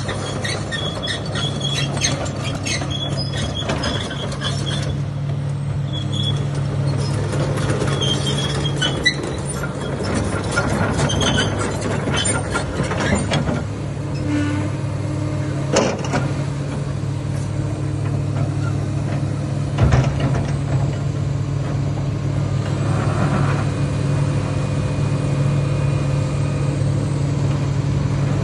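Komatsu 35-tonne crawler excavator's diesel engine running steadily, a low even hum. Scattered short high squeaks and clicks come through the first half, and there are a couple of sharp knocks later on.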